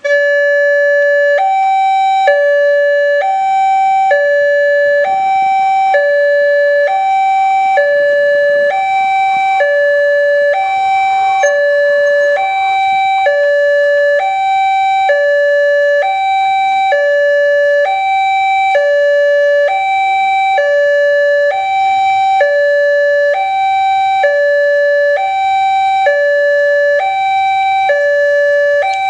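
Railway level-crossing warning siren, a newly replaced unit, switching on abruptly and sounding a steady two-tone alternation. It swaps between a lower and a higher pitch a little under once a second, warning that a train is approaching.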